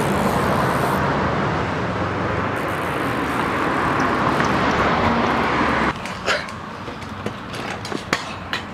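Steady rushing roll of a mini BMX's small tyres on concrete, cutting off about six seconds in. Scattered knocks and clatter follow.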